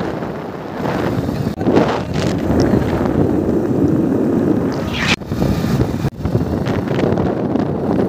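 Wind rushing over the microphone of a moving motorcycle, with engine and road noise underneath. The sound drops out abruptly three times.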